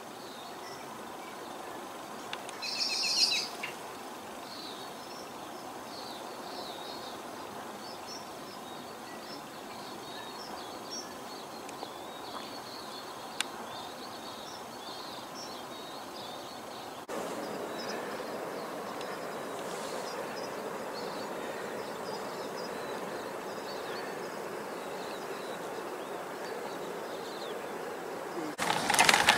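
Birds chirping over a steady outdoor background hiss. There is a brief louder sound about three seconds in, the background gets louder about seventeen seconds in, and loud rustling and crunching starts near the end.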